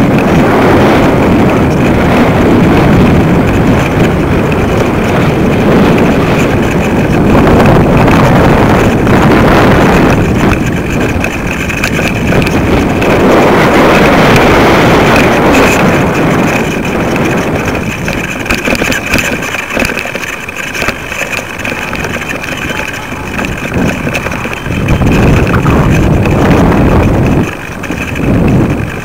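Wind buffeting the microphone of a camera rig hanging from a kite line: a loud rushing noise that surges and eases in gusts, dropping off past the middle and gusting up again near the end.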